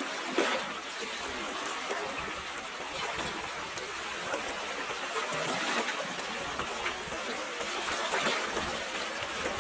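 Water flowing steadily in a stream, with small splashes and trickles.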